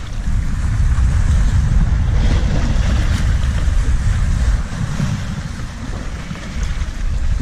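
Wind buffeting the microphone in a low, uneven rumble, easing for a moment about two-thirds of the way through, over sea waves washing against shoreline rocks.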